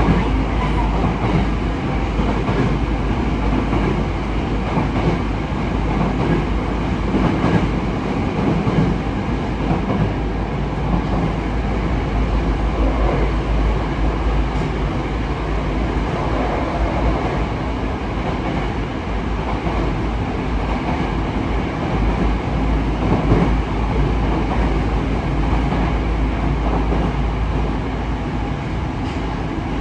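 Yokohama Municipal Subway 3000S train with Mitsubishi IGBT-VVVF control, running between stations and heard from inside the car. It makes a steady loud rumble of wheels and running gear, with an occasional knock from the track.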